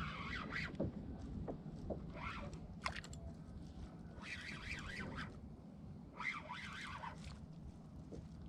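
A bird calling repeatedly in short runs of rising and falling notes, about one run every two seconds, over a faint steady low rumble.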